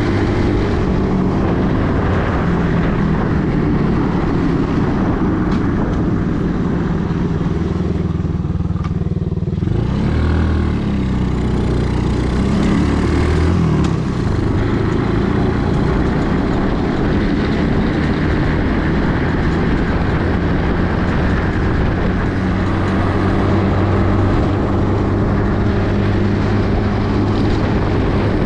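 A 50cc four-wheel buggy's small engine running steadily under way, with a steady rushing noise over it. About nine seconds in the rushing drops for a moment, and the engine note wavers for a few seconds before settling.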